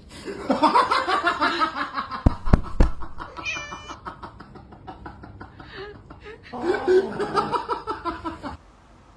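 Domestic cat yowling in two drawn-out, wavering bouts, the first in the opening three seconds and the second near the end, with three low thumps about two and a half seconds in.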